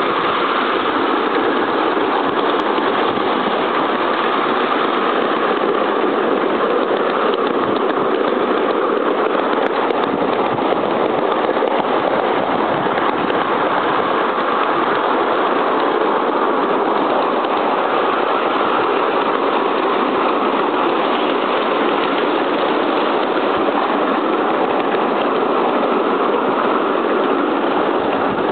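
A 7¼-inch gauge 2-4-2 tender steam locomotive hauling passenger carriages along the track, heard from the front carriage as a loud, steady running noise from the engine and the wheels on the rails.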